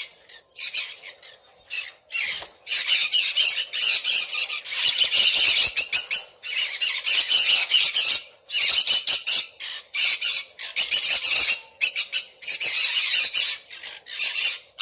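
Sun conures screeching, loud harsh squawks. A few separate calls at first, then near-continuous runs of screeching broken by short pauses from about two and a half seconds in.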